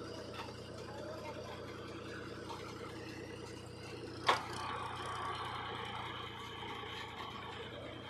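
Powertrac 434 DS Plus tractor's diesel engine running steadily while hauling a trailer loaded with soil, with one sharp knock a little after halfway.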